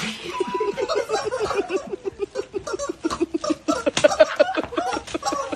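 Women laughing hard in a long run of rapid, breathy ha-ha pulses, with scattered sharp knocks and clacks mixed in.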